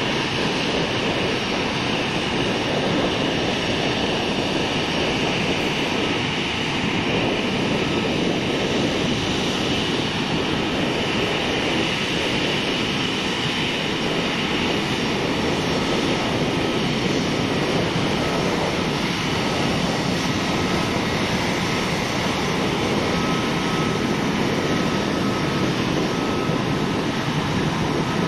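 Airbus A319 airliner's twin jet engines running at taxi power as the plane rolls past, a steady jet noise with a faint steady whine that grows clearer in the second half.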